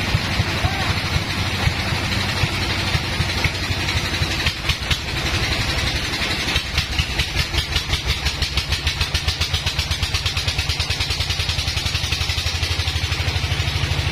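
Sawmill band saw machinery running loud and steady, with a deep hum under a hiss. About halfway through the sound takes on a rapid, even pulse.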